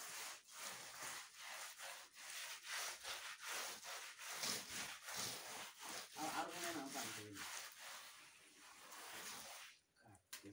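A hand smearing wet mud plaster over an earthen floor and wall base, in quick rubbing strokes about two to three a second that stop near the end.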